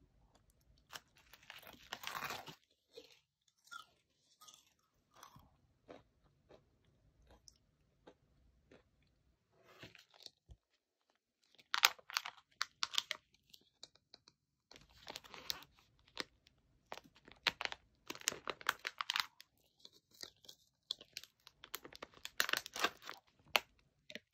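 Close-miked eating sounds of a crunchy snack: bites and crunching chews come in bursts a second or two long, separated by short pauses, with a near-silent gap about ten seconds in.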